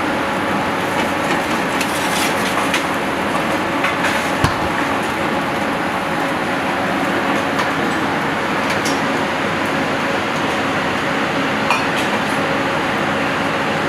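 Steady hiss and hum of a professional kitchen's gas range and extraction, with a few light clinks and knocks as a spatula stirs crumbs in a small steel saucepan. A louder low thump comes about four and a half seconds in.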